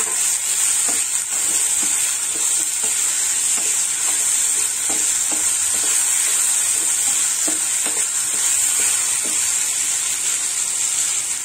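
Chopped onion, tomato and coriander leaves sizzling steadily in hot oil in a pan. A wooden spatula stirs them, scraping and knocking against the pan at irregular moments.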